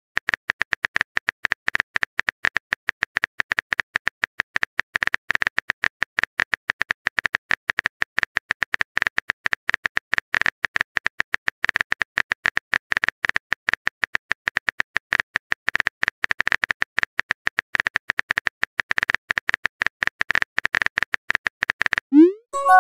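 Typing sound effect of a texting app: rapid, evenly paced key clicks, many a second, as a message is typed out letter by letter. Near the end the clicks stop and a short rising pop, the message-sent sound, begins.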